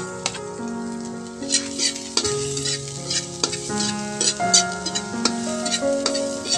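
Metal ladle stirring and scraping chopped garlic around a wide metal wok as it fries, with a light sizzle and a run of sharp scrapes and clinks of the ladle on the pan from about a second and a half in. Background music with held melody notes plays underneath.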